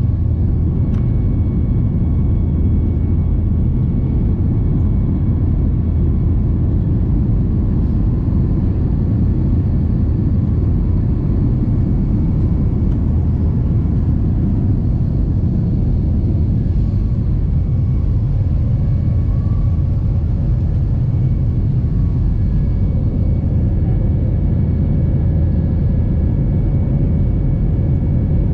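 Airliner cabin noise: a steady, loud, low rumble of jet engines and rushing air heard from inside the passenger cabin, with a few faint steady high tones over it.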